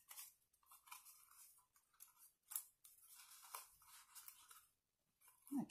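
Faint crinkling and rustling of gaffer tape being handled and pressed onto a cardboard toilet-roll tube, with a few light clicks.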